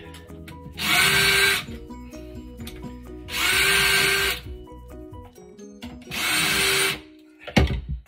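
Cordless drill with a centering pilot bit running in three short bursts of about a second each, each spinning up with a rising whine, drilling pilot holes through a metal hinge repair plate into the chipboard cabinet carcass. A sharp knock comes near the end.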